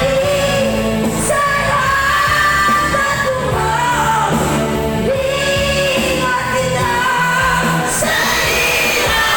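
A song: a voice singing over instrumental accompaniment with a steady bass line.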